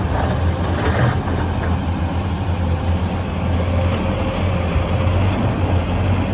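Heavy quarry machinery running with a steady low hum, as a loaded Terex TR70 haul truck pulls away from a Hyundai R800LC-8 excavator running on electric power.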